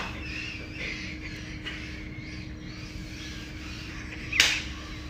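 A bird squawking in short, wavering calls. About four and a half seconds in there is one sudden, loud, brief noisy burst.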